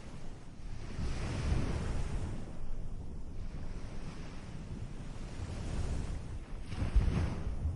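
Ocean waves washing ashore, swelling and receding, with two stronger surges, one about a second in and the loudest near the end.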